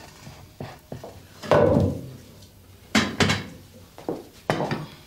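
Several sharp knocks and clatters of crockery and utensils handled on a wooden kitchen table. The loudest comes about a second and a half in and rings briefly.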